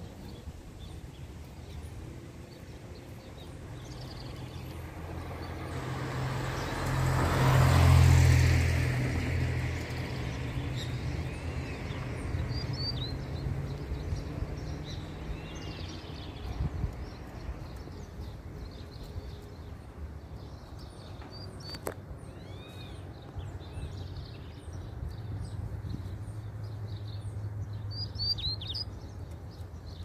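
Double-collared seedeaters (coleiros) trading scattered short bursts of high chirping song, a free bird and a caged one counter-singing. A vehicle passes about eight seconds in, the loudest sound, and a low engine hum returns near the end.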